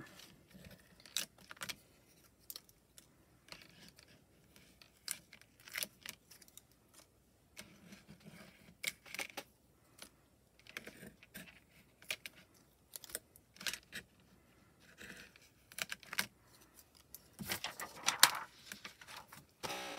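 Irregular light clicks, taps and rustles of hands and a small metal spatula lifting die-cut cardstock pieces off a plastic cutting mat and setting them onto a stamping platform, busier and louder about 17 seconds in.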